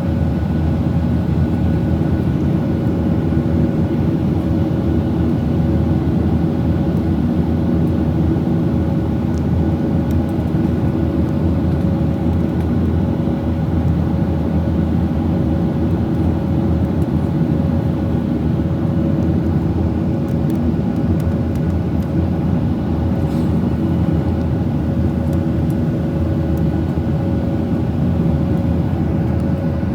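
Boeing 737-800 jet engines and airflow heard from inside the economy cabin: a steady, loud drone with several constant hum tones over a deep rumble.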